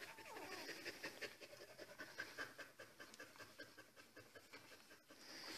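Faint, quick panting from a mother dog in a whelping box, mixed with many small squeaks from her newborn puppies.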